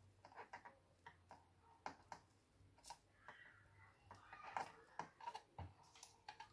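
Faint, irregular light clicks and taps of small tools and parts being handled during motherboard capacitor work, over a low hum.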